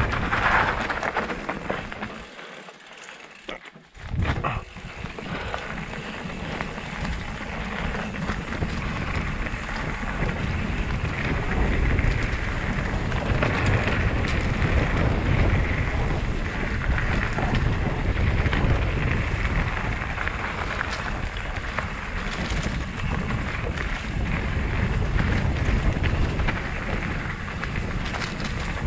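Wind buffeting a helmet-mounted GoPro while a mountain bike rolls fast over a dirt trail, tyres crackling on the ground and the bike rattling. The noise drops away sharply for about two seconds near the start, then comes back and runs on.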